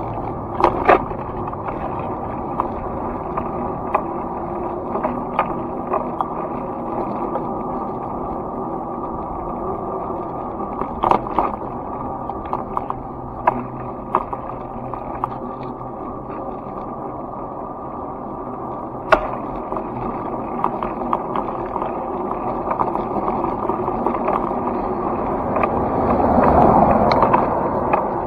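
Rolling ride noise from a moving vehicle carrying the camera: a steady rumble and hum from wheels on pavement, broken by scattered clicks and knocks over bumps and cracks, swelling briefly near the end.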